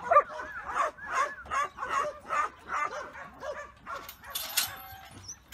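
Kelpie yard dog barking repeatedly, about two to three sharp barks a second, the working bark that pushes sheep along in a yard. The barking stops about four seconds in, followed by a short burst of noise.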